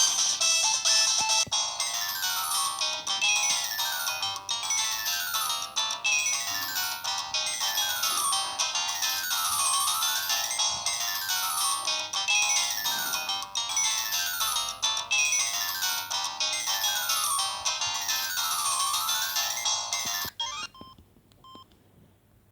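Samsung SGH-X210 mobile phone playing a ringtone melody: a quick, repeating figure of notes that runs down and back up in pitch. It cuts off suddenly near the end.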